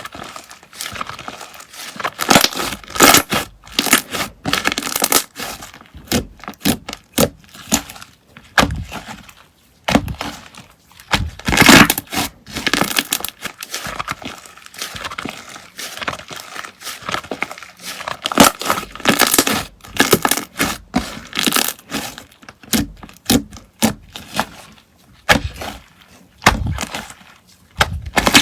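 Slime being squeezed, pressed and pulled by hand, giving dense, irregular pops and crackles that come in bursts with short lulls between them.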